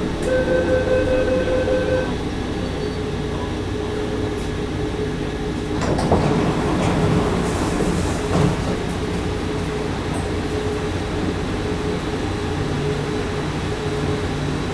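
Cabin of a Bombardier Wenhu Line metro car standing at a station platform: the car's equipment hums steadily. A steady two-note tone sounds for the first two seconds, and there are a couple of knocks around the middle with a short hiss between them.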